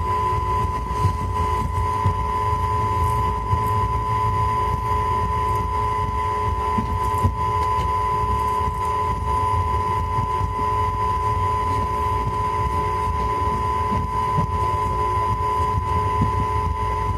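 Passenger train running steadily, heard from inside the coach: a constant low rumble from the wheels on the track, wind on the microphone, and a steady whine over it.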